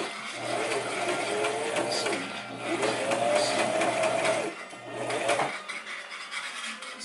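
Electric sewing machine running, its motor whine rising and falling in speed, stopping at about four and a half seconds, then running again briefly.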